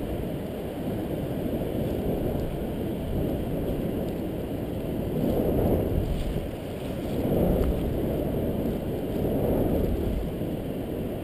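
Wind rushing over the microphone of a camera mounted on a paraglider's wingtip in flight: a steady low rumble that swells louder a couple of times midway.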